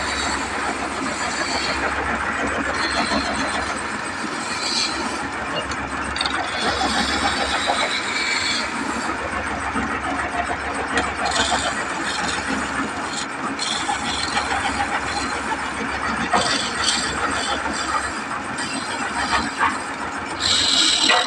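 Wood lathe running steadily while a hand-held chisel cuts grooves into a spinning wooden spindle, the cutting noise coming and going in spells of a second or two.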